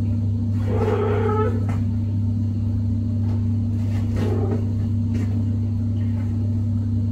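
A steady low hum, with a cat giving a short meow about a second in.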